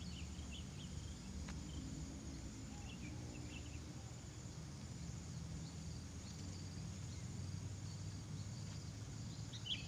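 Outdoor ambience: a steady low rumble under a faint, even high insect drone, with a few short faint chirps scattered through.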